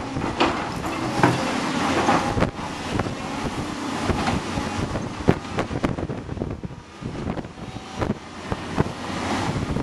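Blustery wind buffeting the microphone, a rough crackling noise with irregular sharp cracks that dips briefly about two-thirds through. Under it runs the diesel engine of a tracked excavator at work.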